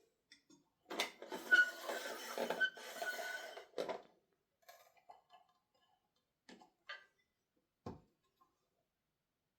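Handling noise from unpacking or fitting the parts of a small wood lathe: about three seconds of scraping and rattling with a few short squeaks, then several separate clicks and a single knock.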